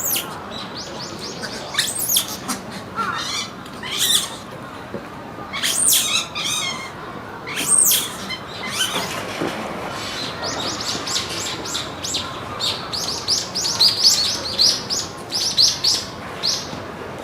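Monkey calls, very high-pitched and bird-like. First come a few sharp squeals that sweep down in pitch, then in the second half a fast run of short chirps.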